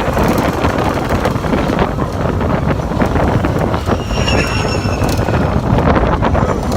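Slinky Dog Dash steel roller coaster running at speed, heard from a rider's seat: wind rushing over the microphone over the rumble and clatter of the train on its track. A faint high squeal comes in briefly about four seconds in.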